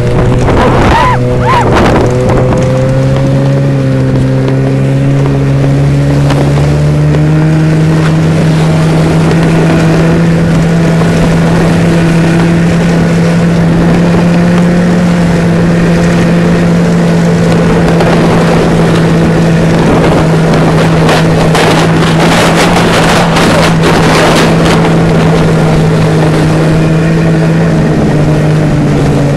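Snowmobile engine running steadily as it tows a sled, its pitch climbing over the first few seconds and then holding, under a loud rushing noise that grows heavier about three-quarters of the way through.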